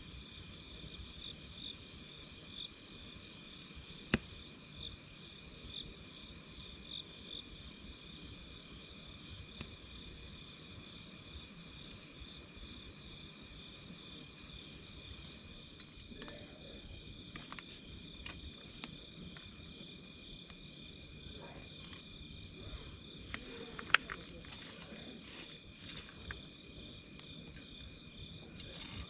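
Wood campfire crackling with scattered sharp pops, busier in the second half, with two louder pops about 4 seconds and 24 seconds in. Under it runs a steady, high, pulsing chirring of insects.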